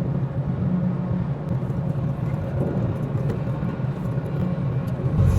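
Steady low mechanical rumble with a few faint, irregular clicks; it grows a little louder near the end.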